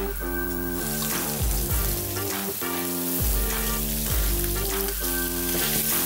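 Beef burger patties frying in rendered bacon fat in a hot pan with a steady sizzle, under background music with a repeating bass line.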